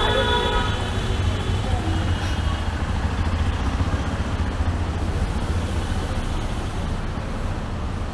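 Night street ambience: a steady low rumble of road traffic, with a brief held pitched tone at the very start and a fainter one about two seconds in.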